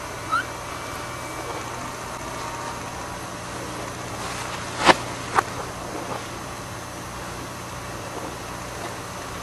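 A steady low hum and hiss, with a brief budgie chirp just after the start and two sharp clicks about five seconds in, half a second apart; the first click is the loudest.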